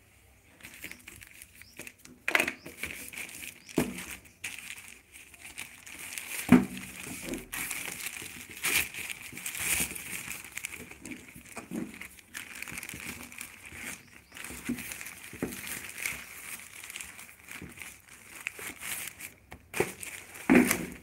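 Plastic courier mailer bag and plastic wrapping crinkling and rustling as they are handled and opened by hand. The rustling is irregular, with several louder sharp crackles.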